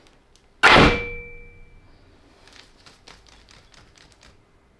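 Soap bar cutter coming down through a cold process soap loaf, ending in a single loud metal clang that rings on briefly, followed by faint small clicks and taps.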